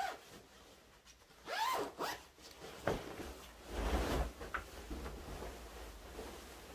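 A zipper is pulled in a quick sweep, then a duvet is shaken out and flung down onto the bed. Its fabric makes a loud whoosh with a soft thump about four seconds in, followed by rustling.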